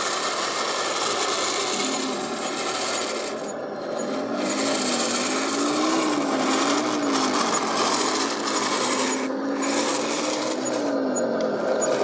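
Radio-controlled model tank driving: a steady grinding rasp of its drive gearboxes and tracks, with a motor whine that rises and falls repeatedly from about four seconds in.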